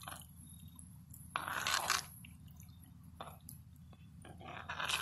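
Long-handled metal spoon stirring thick vegetable soup in a cast iron pot: a scraping, sloshing swish about a second and a half in and again near the end, with a light click in between.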